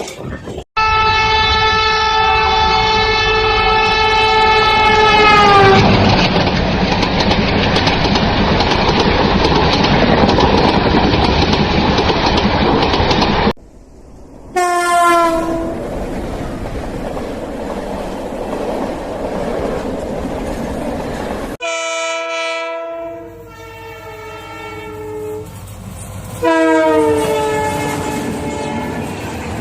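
Indian Railways train horns, several recordings spliced together. A long steady horn blast sags in pitch as it ends and gives way to the rumble and clickety-clack of a passing train. Then come a short horn falling in pitch, a horn of several notes held for a few seconds, and another falling horn near the end.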